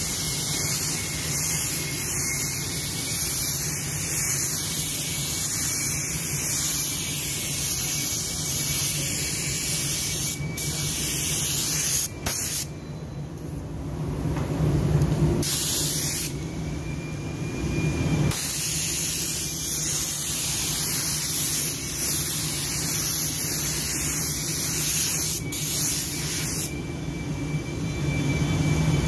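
Air spray gun hissing as it lays a second coat of clearcoat onto a plastic car bumper. The hiss stops twice for a couple of seconds around the middle as the trigger is released between passes, over a steady low hum.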